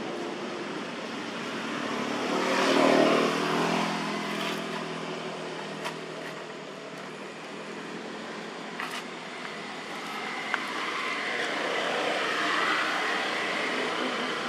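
A motor vehicle passing, its engine swelling to a peak and fading about two to four seconds in. A second, quieter swell of passing traffic comes near the end, with a few faint clicks in between.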